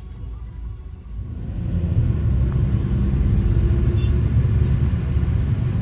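Low road and engine rumble of a moving car, heard from inside the cabin, growing louder about a second and a half in and then holding steady.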